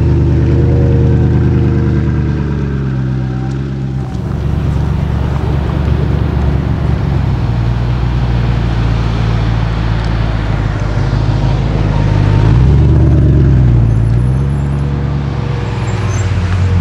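Supercar engines with a deep exhaust note, their pitch shifting as they rev and pull away, and a rush of noise as a car passes, loudest about twelve to thirteen seconds in.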